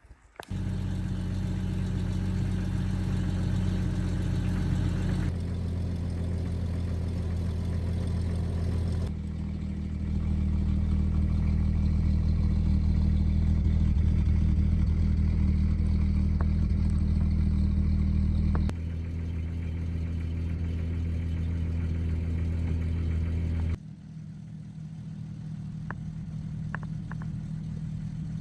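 A motor vehicle's engine running steadily with a low hum. It changes abruptly in level and pitch four times.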